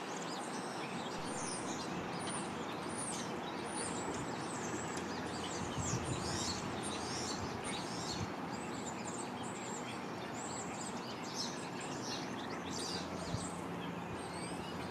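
Small songbirds chirping, with many quick, high-pitched chirps overlapping throughout, over a steady background noise.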